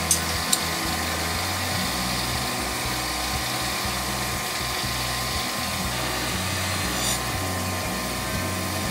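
A steady whine and hum like a small motor running, with a few light metallic clicks: two right at the start and one about seven seconds in.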